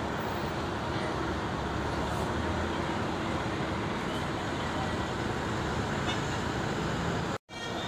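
A sleeper coach's diesel engine running as the bus moves slowly past, over steady traffic noise. The sound cuts out for a moment near the end.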